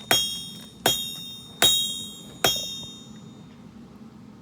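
Hand hammer striking steel on an anvil while forging a blade: four blows a little under a second apart, each leaving a bright metallic ring that fades away. The blows stop about two and a half seconds in.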